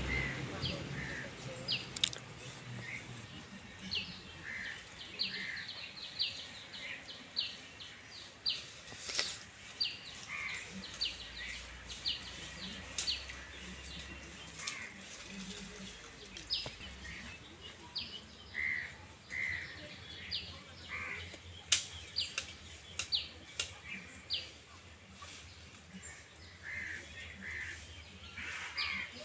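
Small birds chirping: short high calls repeated every second or so, with a few lower calls and several sharp clicks.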